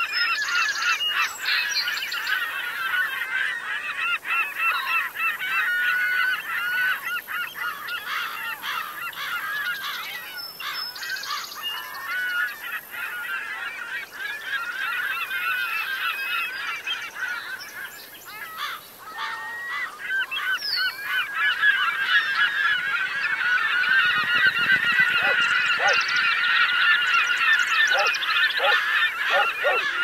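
A flock of gulls calling, many short overlapping calls at once, thinning out a little past the middle and building back up to a dense chorus over the last third.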